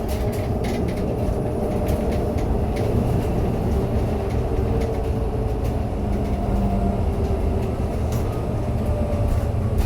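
MAZ-303E23 battery-electric bus driving, heard from inside the cabin: a steady low rumble of tyres and road with small rattles and clicks, and faint whines from the electric drive that shift slightly in pitch.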